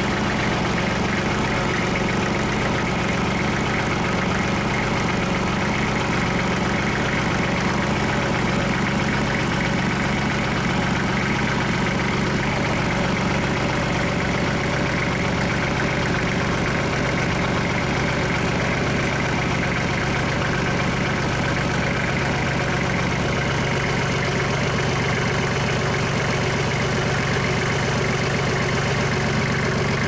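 Kubota L3240 tractor's diesel engine idling steadily, run to check for coolant leaks after a thermostat replacement.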